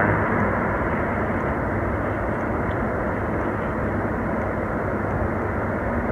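Steady, even outdoor background noise, a constant rumble with no distinct events.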